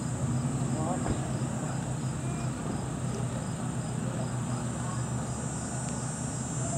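Steady high-pitched insect chorus over a low steady hum.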